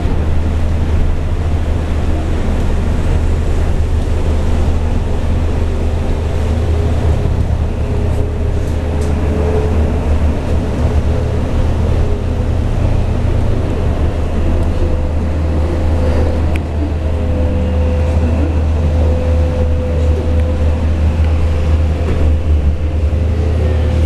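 Cabin noise inside a moving battery-electric city bus: a steady low rumble with a thin steady whine above it and a hiss of tyres on the wet road.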